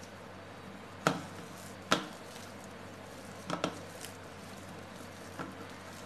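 Boiled potatoes being mashed by hand in a stainless steel bowl, with a few sharp knocks against the steel, the loudest about one and two seconds in.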